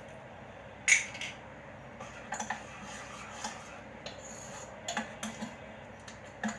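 Spoon clinking and scraping against a bowl while mixing, with one sharp clink about a second in and lighter clinks after it.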